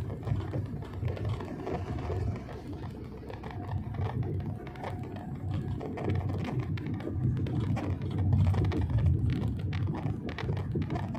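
Cabin noise of a Wuling Almaz Turbo on the move: a low, uneven rumble of road and engine, with scattered light clicks and rattles.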